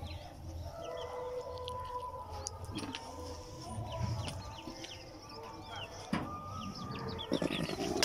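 Chickens clucking, with a rooster crowing, and many short chirps of small birds.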